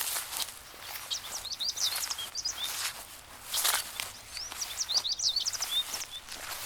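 Small birds chirping in quick runs of short, high notes, with scattered soft rustles and clicks underneath.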